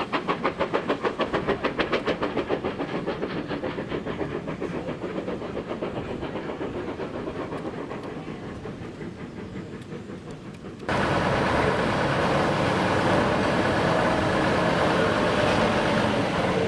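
Steam locomotive working, its exhaust chuffing in a rapid, even beat that slowly fades as it draws away. About eleven seconds in, the sound cuts abruptly to a steady, louder rushing noise.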